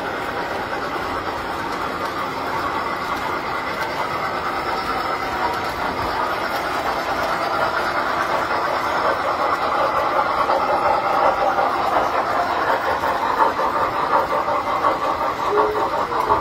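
Tinplate model trains running on metal track: a steady rumble and clatter of metal wheels that grows a little louder toward the end, with a short wavering tone just before the end.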